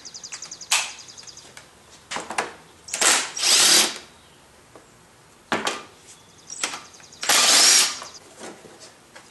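Cordless drill with a socket running in bursts to spin off the 10 mm nuts holding the plastic upper engine cover. There are several short spurts and two longer runs of about a second each.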